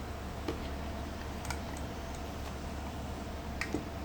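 A few faint, scattered clicks and taps of a die-cast metal toy vehicle being handled, over a steady low hum.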